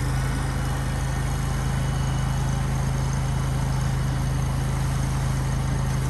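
Engine of a construction machine running steadily at constant speed, a low, even hum with no change.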